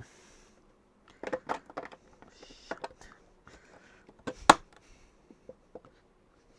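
Plastic Nova Brick building-brick pieces being handled and pressed together: a string of small clicks and taps, the sharpest about four and a half seconds in.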